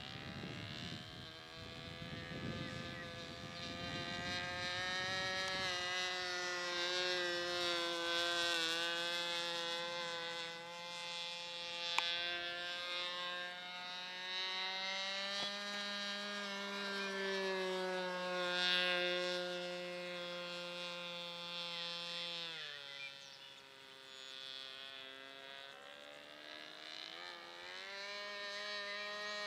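A radio-controlled model airplane's SC 25 two-stroke glow engine runs at high revs in flight, a buzzing whine whose pitch slides gently as the plane moves across the sky. About three-quarters of the way through it is throttled back to a lower drone, then opened up again near the end. Wind rumbles on the microphone at the start.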